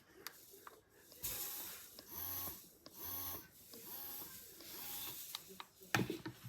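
Electric breast pump motor running, whirring in even suction cycles about once a second, with a couple of sharp clicks near the end.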